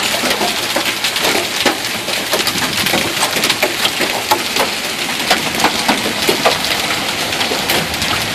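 Hail and heavy rain pelting pavement and parked cars: a steady dense hiss of rain, shot through with many sharp clicks and ticks of hailstones striking.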